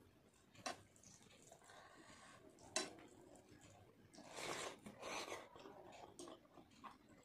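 A hand mixing wet panta bhat (soaked rice) on a steel plate, with two sharp clicks against the plate about two seconds apart. About four seconds in, louder wet eating sounds come as a big handful of rice goes into the mouth and is chewed.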